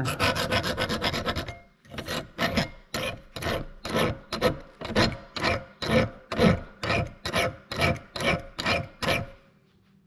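Fine hand file rasping along the cutting edge of a dull baler knotter knife to sharpen it: a quick run of short strokes, a brief pause, then slower, even strokes about two and a half a second that stop shortly before the end.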